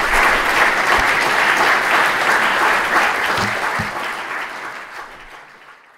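Lecture audience applauding, a dense steady clapping that dies away over the last two or three seconds.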